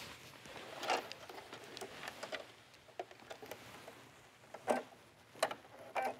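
Fabric being handled and positioned under a sewing machine's needle: soft rustling with a few short, sharp clicks, one about a second in and several near the end.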